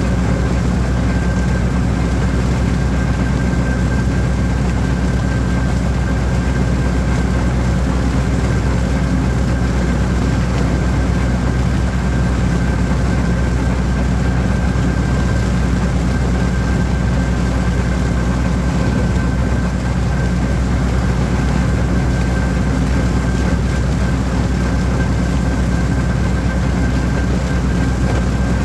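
Holder compact orchard tractor's diesel engine running steadily at working speed while mowing, with a thin steady high whine above the engine note.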